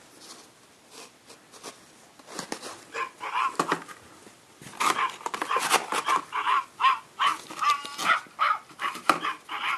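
Australian Shepherd whining and yipping in a quick run of short, high-pitched cries, starting about two seconds in and getting louder about halfway through.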